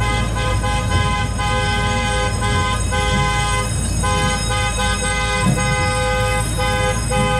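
Miniature train's horn sounding a long series of toots of uneven length, a two-note chord, as the train nears a road crossing. A low engine rumble runs underneath.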